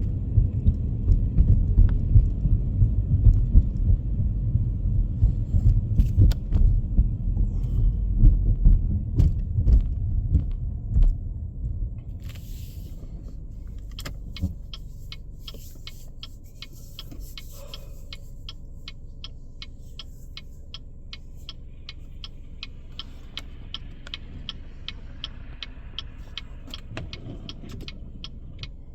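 Car cabin: low rumble of the car moving over snowy road, which drops away about 11 seconds in. Then the indicator relay ticks steadily, about twice a second, over a quiet engine hum.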